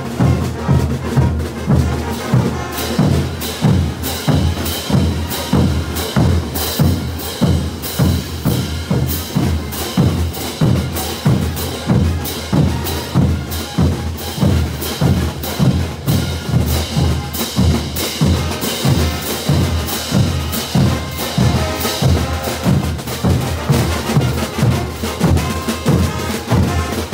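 Bolivian street band's percussion section playing a steady marching beat: large bass drums, snare drums and hand cymbals. The cymbal clashes join in a couple of seconds in.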